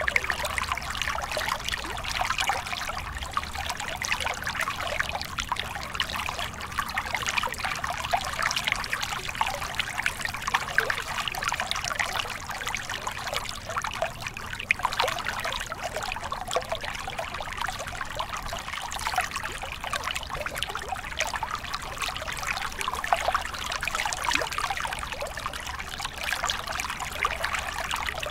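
Small mountain stream tumbling in a short cascade over boulders into a rocky pool: a steady, even rush of splashing and trickling water with fine flickering detail and no pauses.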